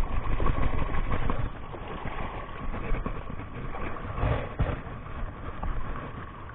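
Sea water sloshing and splashing over coral rock at the water's edge, with a couple of short knocks about four seconds in, under a steady low rumble.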